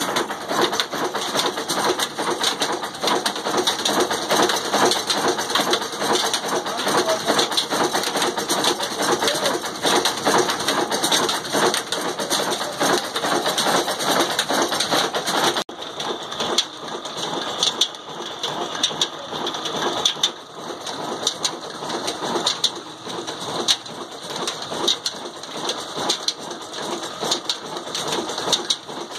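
Old single-cylinder horizontal diesel engine of the Ruston Hornsby 'desi' type, with heavy flywheels, running steadily with a rapid, even knocking beat. About halfway through the sound drops a little and thins.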